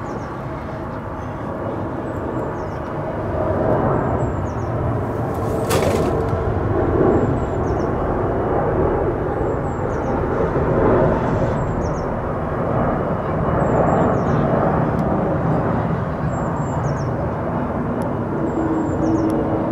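Airbus A330-300 airliner with GE CF6-80E1 turbofans passing low overhead on final approach with its gear down. Its engine and airframe noise is a steady, broad rumble that swells a few seconds in and stays loud.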